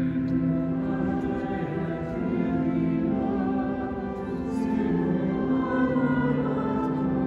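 Choir singing sacred music in long held chords, which change about two seconds in and again about five seconds in.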